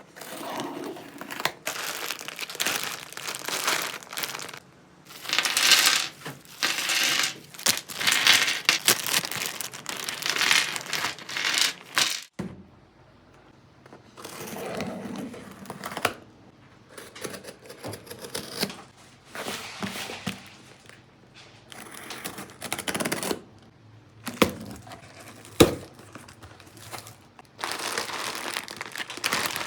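Crinkly handling noise: irregular rustling and crinkling with scattered small clicks, quieter after a sudden break about twelve seconds in, and one sharp knock near the end.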